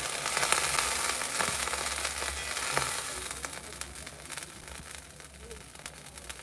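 Water sizzling and boiling off on an overheated frying pan that is being cooled with a little water. The hiss is loudest in the first three seconds, with scattered crackles, then fades as the water evaporates.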